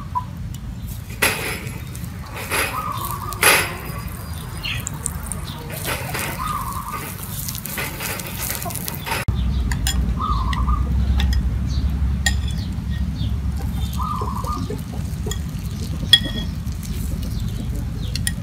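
Metal spoon and ceramic bowls clinking: a few sharp clinks in the first few seconds, then a spoon beating eggs in a ceramic bowl with light, scattered taps against the side.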